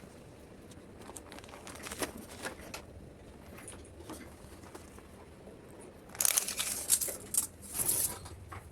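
Crinkling and rustling of material being handled, with scattered light clicks; a louder bout of crackling rustle comes about six seconds in and lasts roughly two seconds.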